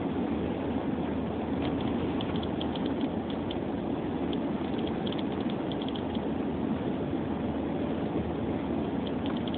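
Steady rumble of a car driving, heard inside the cabin, with irregular light ticks of snow hitting the windshield, coming in clusters from about a second and a half in and again near the end.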